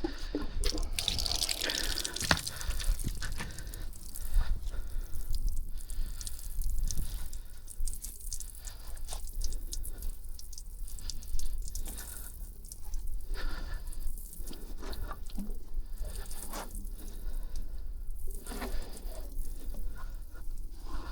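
Water dripping and splashing in irregular drips and small splashes, over a steady low rumble.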